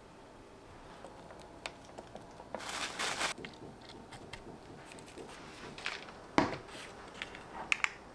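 Kitchen handling noises: scattered light taps and clicks, a short rustle about three seconds in, and one louder knock about six and a half seconds in.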